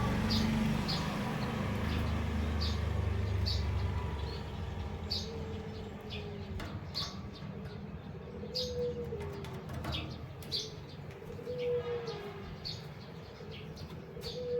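Small caged finches, a female canary and a male white-headed munia, giving short high chirps about once a second. A low rumble fades out after about four seconds, and from about five seconds in a low, stepwise falling coo repeats every few seconds, like a dove.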